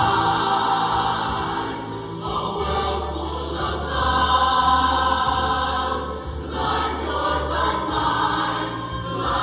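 Large mixed show choir singing long held chords over a steady low bass, the harmony changing a few times.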